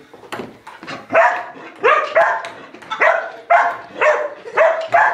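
A dog barking repeatedly, about eight sharp barks at roughly two a second starting about a second in, excited at a ping-pong ball it is trying to get.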